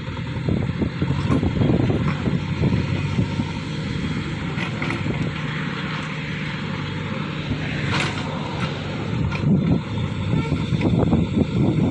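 JCB 3DX backhoe loader's diesel engine running steadily, with a few sharp knocks partway through.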